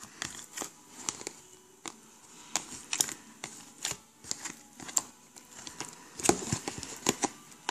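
Jiggly slime being poked and pressed by fingers in a plastic tub: irregular small clicks and pops, several a second.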